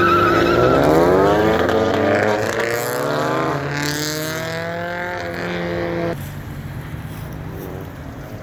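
Car engine revving hard under acceleration, its pitch climbing, dropping briefly at a gear change about three and a half seconds in, then climbing again. The engine sound cuts off abruptly about six seconds in.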